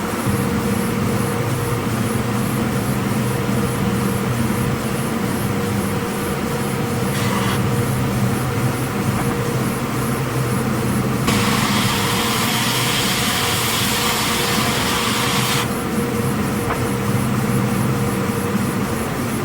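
36-inch Timesaver wide belt sander running with a steady hum, its 36-grit abrasive belt sanding an Osage orange slab. A louder, higher hiss comes in about eleven seconds in and drops back about four seconds later.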